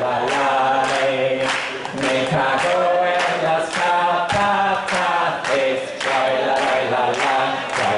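Voices singing a slow, chant-like melody, the notes held and broken by short pauses.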